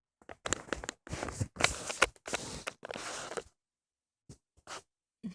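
Close-up scraping and clicking of small metal tools (tweezers or a dental pick) working over a phone's LCD and frame to lift off specks of debris, busy for about three and a half seconds, then a few isolated ticks.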